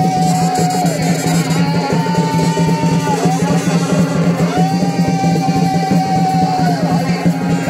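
Chhau dance music: fast, continuous drumming under a high melody that holds long notes, each bending down at its end.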